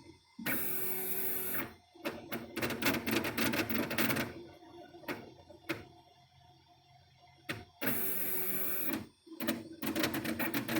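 Home-built CoreXY 3D printer with TMC2209-driven stepper motors making a harsh, awful noise. It repeats in cycles: a steady loud rasp for about a second, then a fast clattering rattle, a quieter spell with a few single clicks, and the rasp and rattle again near the end. The cause is not known; the printer had printed first-layer test squares fine.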